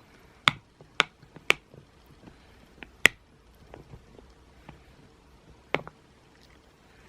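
A series of sharp snapping clicks: three about half a second apart, a loudest one about three seconds in, another near the end, and fainter ones between.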